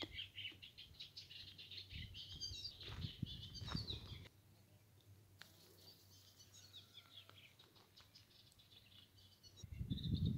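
Small birds chirping and twittering throughout. Wind rumbles on the microphone in the first four seconds and comes back near the end, with the birds fainter in the calmer stretch between.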